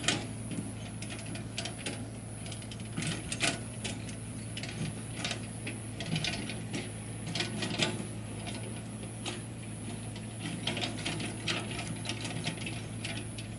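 Paddy-field ditching machine cutting a water channel: a steady low engine hum with irregular clicking and clattering as it churns mud and sprays it to both sides.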